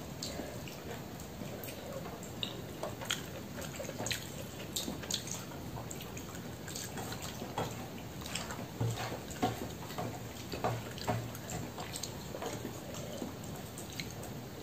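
Eating rice by hand: fingers mixing rice with dal and curry on a steel plate, then wet chewing and mouth sounds, heard as many small wet clicks and smacks.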